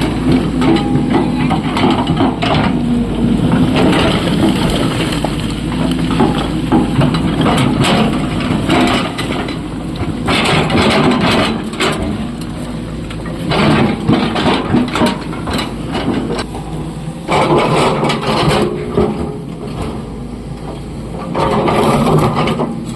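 SANY excavator's diesel engine running under load, with rock scraping, crunching and clattering in spells of a few seconds as the bucket digs and loads.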